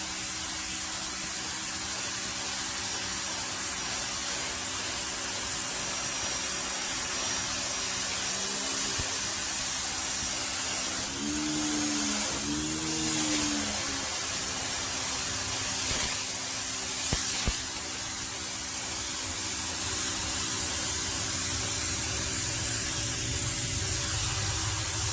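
Electric pressure washer spraying a water jet onto concrete at close range: a steady hiss of spray over the hum of its motor-driven pump. About halfway through, the motor's pitch sags and recovers twice.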